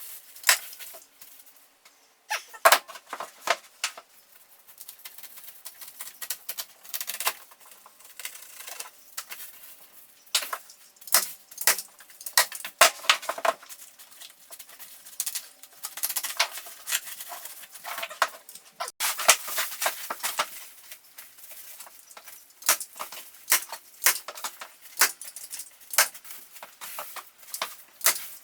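Irregular crinkling, rustling and light clicking of insulation being handled and fitted into a stud wall, with a faint steady hum underneath.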